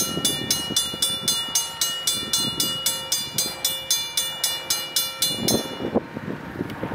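Safetran mechanical railroad crossing bell ringing steadily, about four strikes a second, each with a lingering ring. It cuts off about six seconds in, once the crossing gates are fully down.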